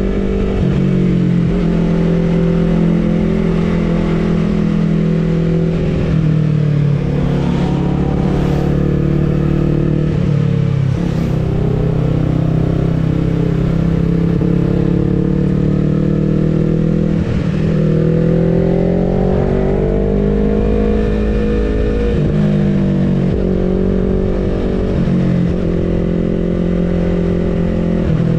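Vehicle engine running continuously under changing throttle. Its pitch climbs slowly and then drops sharply about five times, as it would with shifts or lifting off the throttle on a downhill road.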